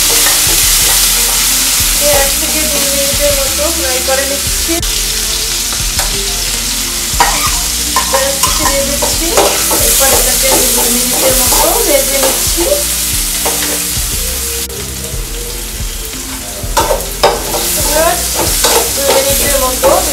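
Chopped onion, garlic, green chillies and small shrimp sizzling in hot oil in a metal karahi, with a steady hiss throughout. A metal spatula stirs and scrapes them against the pan in bouts of scraping and clicking.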